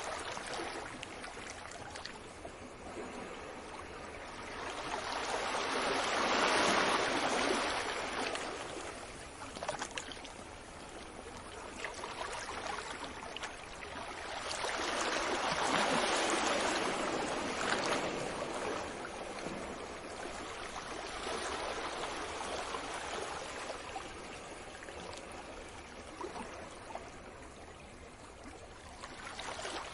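Ocean surf washing onto a beach: a steady rush of water that swells twice into larger breaking waves, roughly ten seconds apart, then eases back.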